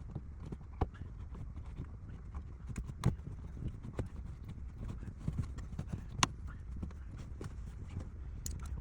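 Irregular clicks and knocks, a few sharper ones standing out, over a low steady rumble.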